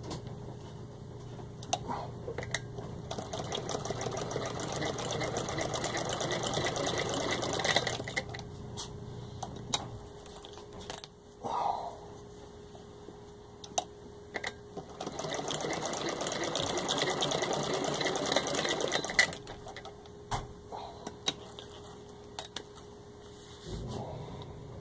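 1923 Singer Model 66 sewing machine, turned by hand crank, stitching through six layers of denim. There are two runs of rapid, even ticking of a few seconds each, with scattered separate clicks and knocks between them.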